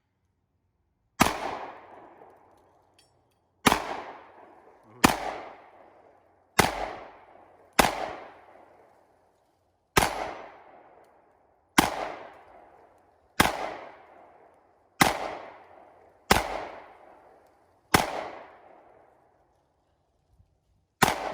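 Glock 19 Gen 5 9mm pistol fired in twelve slow, deliberate single shots about one to two seconds apart, each crack followed by a decaying echo.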